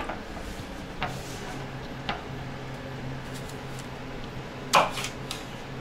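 Knife cutting an apple on a wooden cutting board: a few scattered knocks and clicks, the loudest about five seconds in, over a steady low hum.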